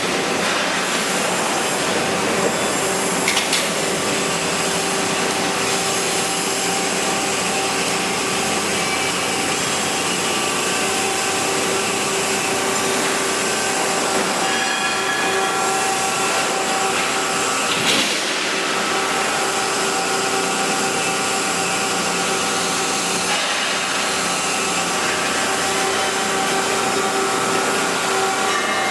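Sheet-metal bending machine running with a steady mechanical hum, broken by a few sharp metallic knocks.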